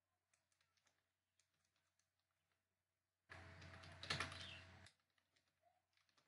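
Computer keyboard typing: faint, irregular key clicks, with a louder stretch of hiss and quick clicks for about a second and a half in the middle that starts and stops abruptly.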